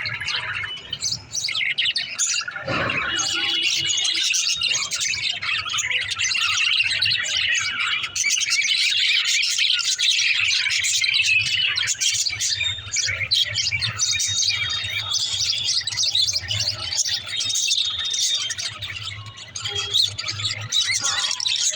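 A flock of pet budgerigars chirping and chattering continuously, with many overlapping calls. A steady low hum runs underneath, and there is a brief knock about three seconds in.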